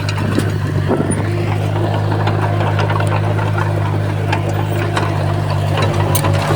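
Komatsu D31P bulldozer's diesel engine running steadily under load, with scattered clicks throughout.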